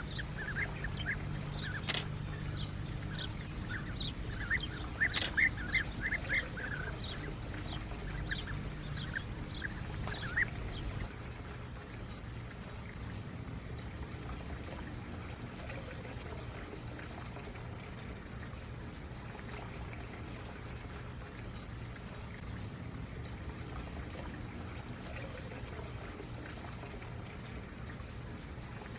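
A stream running steadily, with small birds chirping over it for the first ten seconds or so; the chirping then stops, leaving only the water. Two sharp clicks stand out early on.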